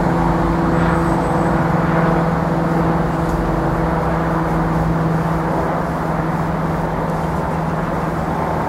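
Class 170 Turbostar diesel multiple unit running along the line, a steady diesel engine drone with a humming note over the rumble of wheels on rail.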